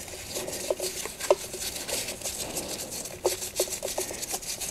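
Light clicks and a few brief metallic clinks as gloved hands handle the gears and small parts inside an open ATV transaxle case, with soft rustling between them.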